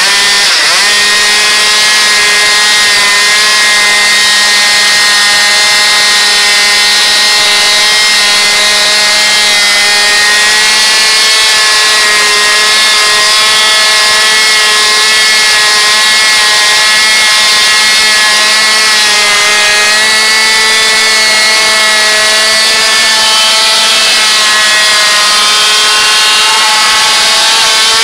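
Small two-stroke moped engine held at high revs during a burnout, the rear tyre spinning on tarmac: a steady, high-pitched buzz whose pitch wavers only slightly.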